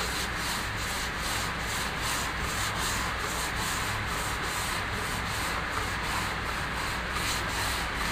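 Hand sanding of a car's front fender: a sanding pad is rubbed by hand over body filler, giving a steady rasp in quick back-and-forth strokes, about three a second.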